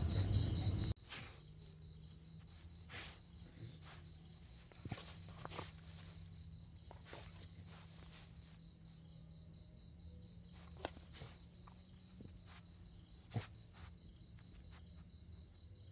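A louder close sound cuts off about a second in, leaving faint, steady high-pitched insect chirring. Soft scattered rustles and ticks of movement in long grass run under it.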